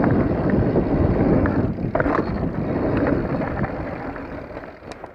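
Mountain bike rolling over a dirt trail, with wind rushing over the microphone and a few clicks and rattles from the bike. The noise dies down over the last second or so as the bike slows.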